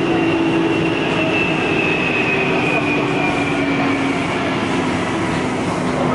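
Taipei Metro C301 train's traction inverter and motors whining over the running noise, several tones slowly falling in pitch as the train slows. The whine is the abnormal inverter noise that shows when this train enters a station.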